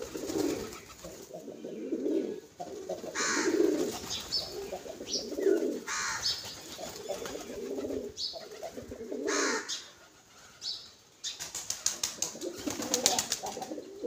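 A flock of pigeons coos in a low, throbbing murmur. Several short bursts of wing flapping break in, and near the end comes a fast run of sharp beats.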